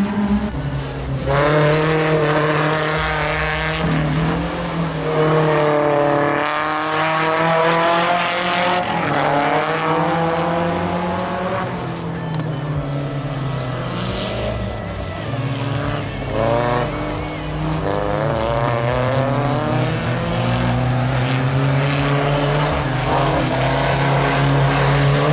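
Racing cars' engines revving hard on an off-road dirt circuit, the pitch repeatedly climbing and then dropping at gear changes.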